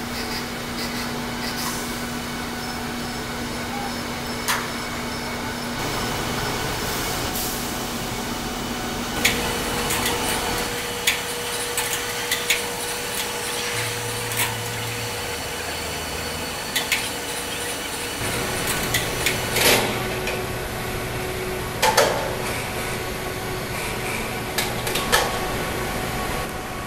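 Steady machinery hum whose pitch shifts a few times, with irregular sharp clanks and knocks, most of them in the second half.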